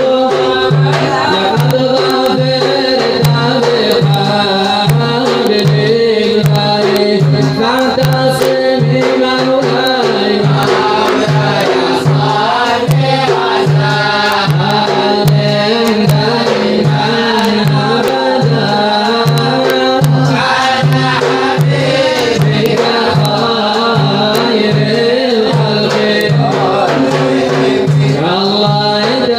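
Arabic devotional nasheed music: a steady drum beat, about three strokes every two seconds, under a sustained melodic line, with voice-like melody coming and going.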